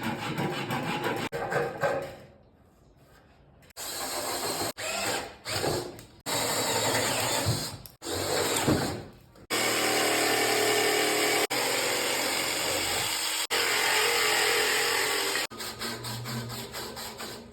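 Woodworking power tools running in a quick series of short clips, each cut off abruptly for the next. Some spin up and down, and there is a brief near-quiet gap about two seconds in, then a long steady run in the second half.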